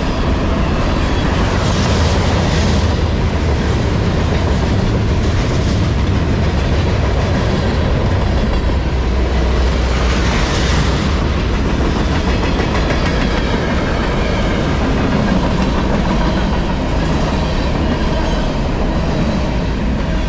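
Freight cars of a fast CSX freight train, covered hoppers and flatcars, rolling past close by: a steady loud rumble with the clatter of steel wheels on the rails and a couple of brief hissing swishes.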